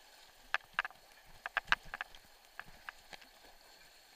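Kayak running flooded whitewater: a faint steady rush of water broken by about ten sharp, irregular knocks and clicks from paddling against the plastic boat. The loudest knock falls a little before the middle.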